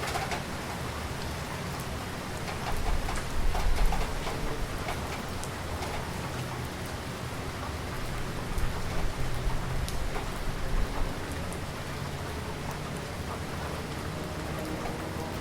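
Heavy rain falling steadily, a dense hiss with scattered individual drops tapping and splashing. A low rumble swells up twice, about three seconds in and again around nine seconds in.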